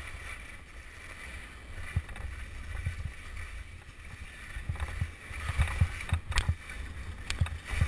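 Skis sliding and scraping over packed, tracked snow, with wind rumbling on the microphone. In the second half the scrape grows louder, with sharp clicks and knocks as the skis chatter over bumps.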